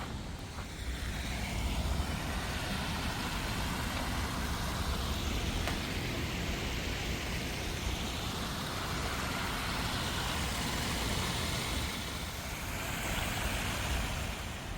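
Road traffic: vehicles passing one after another, each swelling and fading, over a steady low rumble.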